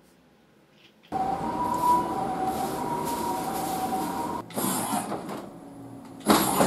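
Electric joint motors and gearing of the G1 prototype robot arm running as the arm moves, giving a whine of two steady tones over mechanical noise. The sound starts suddenly about a second in, changes and drops after about four and a half seconds, and rises again in a loud burst near the end.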